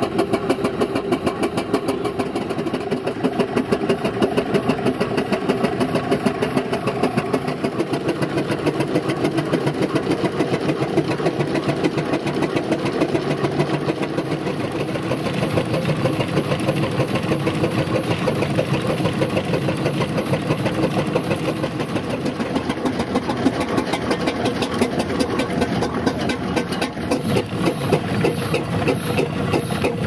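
Vintage steam engines running: a steady, fast mechanical clatter, with a deeper, fuller sound joining about halfway through.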